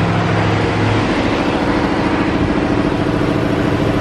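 Mekong slow boat's inboard engine running with a loud, steady drone.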